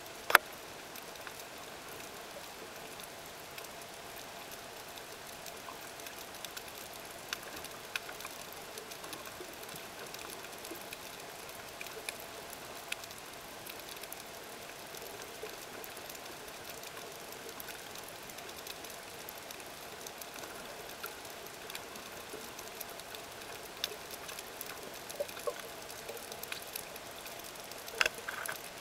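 Underwater ambience picked up by a camera in a waterproof housing: a steady hiss with scattered sharp clicks, which come more often near the end.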